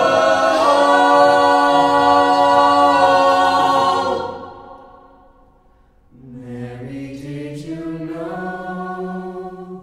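Mixed-voice choir singing a cappella: a loud held chord that fades away about five seconds in, then a softer closing phrase carried by the low voices, which stops near the end.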